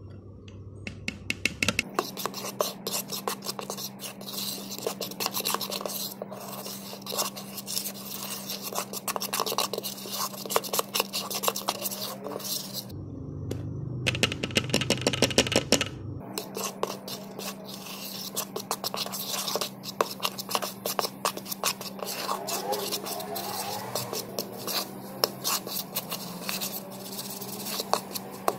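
Metal fork scraping and clicking against a mixing bowl as stiff cookie dough is mashed and stirred, in a fast, uneven run of taps and scrapes. A steady low hum sits underneath, with a break of a few seconds near the middle where the clicking gives way to a smoother noise.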